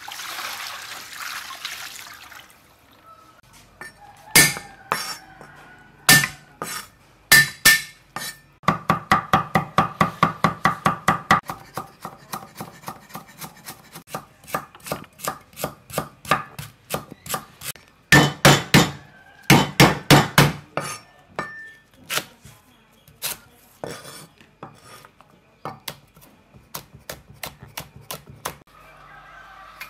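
Water pouring over meat in a plastic colander for the first couple of seconds. Then a steel cleaver chops ginger, lemongrass and chillies on a wooden cutting board: separate chops, with a fast run of about four to five chops a second a few seconds in.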